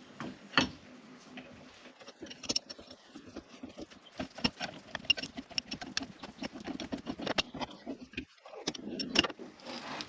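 Irregular run of small sharp clicks and knocks, a few louder than the rest, like tools and metal parts being handled and set down in a workshop.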